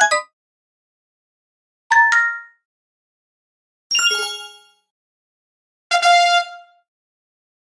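A series of short, bright chime sound effects of the 'success' or notification kind, about two seconds apart with silence between. One is a rising two-note ding, one a three-note figure falling in pitch, and one a single ringing tone.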